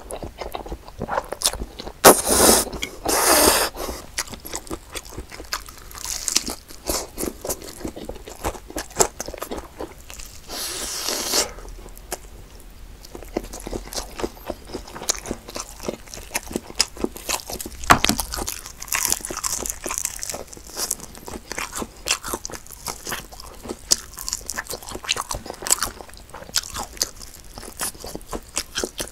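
Close-miked eating sounds: slurping spaghetti carbonara in the first few seconds, then biting and chewing crispy glazed fried chicken wings, with repeated crunches and wet mouth sounds.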